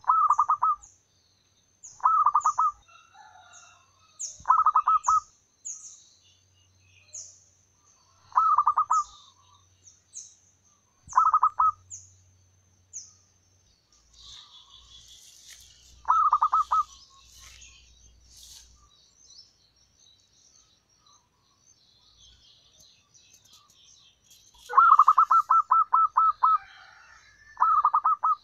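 Zebra dove cooing: short, rapid staccato trills repeated every two to four seconds, with a longer trill near the end. A fainter series of thin, high, falling chirps from another bird runs through the first half.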